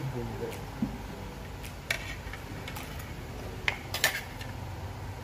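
A few sharp clicks of a spoon against a plate, one about two seconds in and two close together near four seconds, over a steady low room hum.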